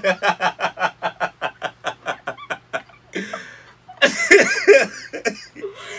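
A man and a woman laughing hard: a long run of rapid, pulsing ha-ha-ha laughter, then a louder burst of laughter about four seconds in.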